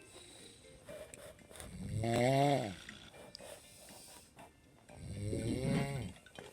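A woman snoring in drunken sleep: two long snores about a second each, roughly three seconds apart.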